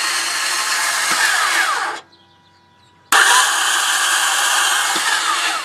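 Starter motor of a 2004 Toyota Sienna whirring in two tries, the first lasting about two seconds and the second, about a second later, nearly two and a half. Each is a steady high whir that stops abruptly, with no engine catching: the sign of the bad starter.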